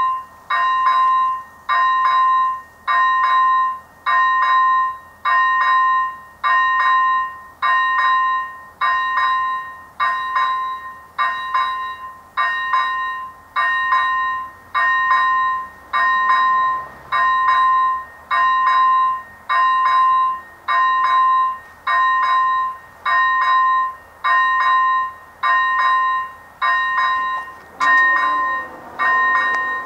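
Electronic bell of an AŽD 97 level-crossing warning signal (first generation) ringing at about one stroke a second, each stroke a bright ding with a short fade. It means the crossing is in its warning phase for an approaching train.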